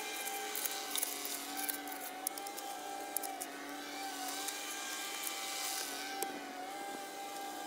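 Steady drone of an engine running, its pitch wavering slightly, with the scrape and click of a shovel digging into soil during the first half.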